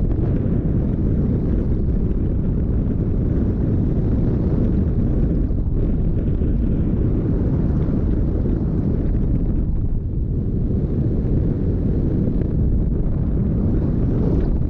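Wind noise from the airstream rushing over the microphone of a GoPro on a hang glider in flight: a steady, loud, deep rush with a brief lull about ten seconds in.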